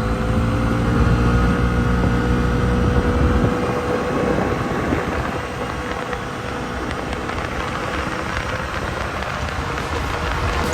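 Fuel-injected 50cc Yamaha Vino scooter engine running as the scooter is ridden off, with wind rushing over the microphone. The engine's steady note is clearest for the first few seconds, after which the wind noise takes over.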